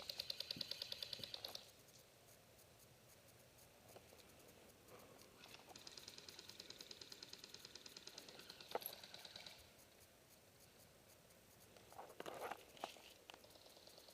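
Faint full-auto bursts from airsoft electric guns, a rapid even clatter of shots. One burst ends early, a longer one of about four seconds comes in the middle, and another starts near the end, with a few sharp knocks between them.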